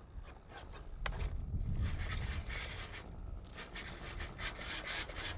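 Model-airplane servos whirring and rasping in short bursts as the control surfaces are moved from the transmitter, in two spells, the second near the end, over a low wind rumble on the microphone.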